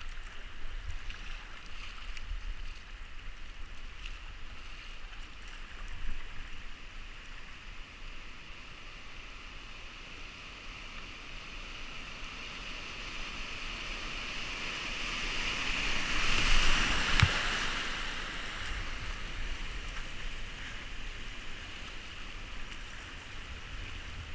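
Fast river water rushing and splashing around a whitewater kayak, rising to its loudest about sixteen to eighteen seconds in as the boat runs through rough water. A low wind rumble sits on the microphone.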